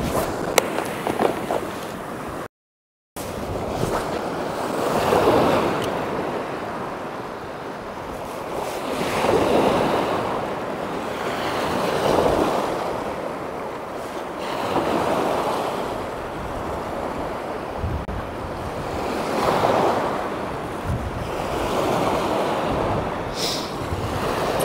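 Sea waves breaking and washing in on the shore, the surf swelling and fading in surges every three to five seconds, with some wind on the microphone. The sound cuts out completely for about half a second near the start.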